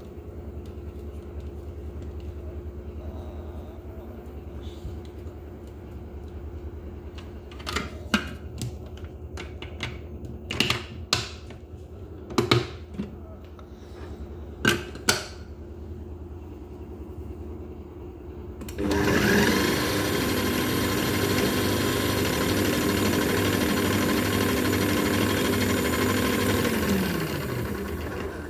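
KitchenAid food processor: a series of sharp plastic clicks and knocks as the bowl and lid are handled and fitted, then the motor runs steadily for about eight seconds chopping onions and winds down near the end.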